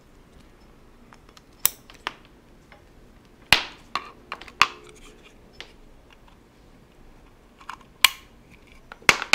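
Sharp, scattered clicks and taps as the RJ45 plugs of a short Ethernet patch cable are pushed into the ports of two small metal boxes, a Starlink cable adapter and a PoE injector, which are handled on a tabletop. There are about seven clicks, the loudest about three and a half seconds in and again about eight seconds in.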